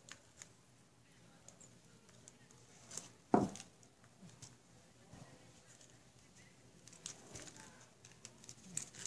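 Cut PET bottle plastic being handled and pressed together: scattered light clicks and rustles of the stiff plastic spikes, with one sharper knock about three seconds in.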